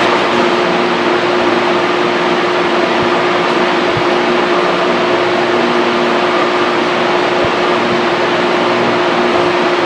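Steady hum and whoosh of a fan running, with a constant low tone under it and a few faint low knocks.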